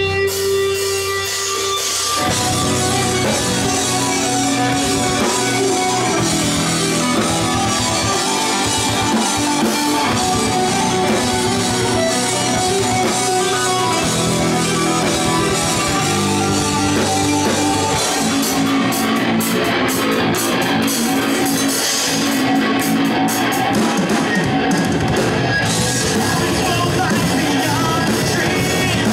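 Live rock band playing loud, with electric guitars and a drum kit: a held guitar chord gives way to the full band about two seconds in.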